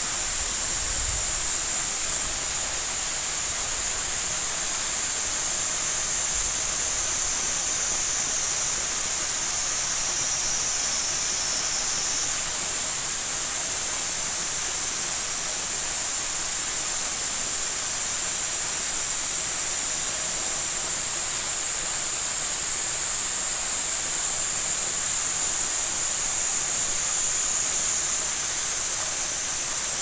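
Waterfall and mountain stream rushing steadily: a dense, even hiss of water with a bright high edge. The sound steps up slightly, a little brighter and louder, about twelve seconds in and again near the end.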